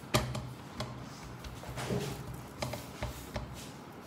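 Light, irregular taps and clicks as a hand pats and presses a raw stuffed paratha on an iron tava.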